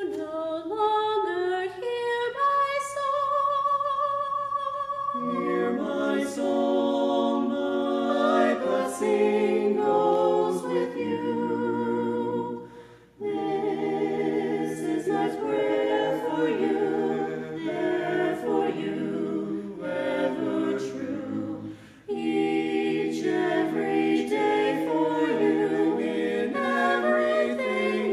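A vocal quartet of two women and two men singing a cappella in harmony. The lower voices drop out for a moment near the start and come back in about five seconds in, and the singing breaks briefly for breaths about 13 and 22 seconds in.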